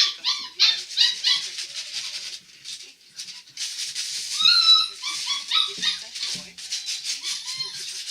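Young puppies whining and yelping in rapid, high-pitched cries, several a second, with a short lull about three seconds in.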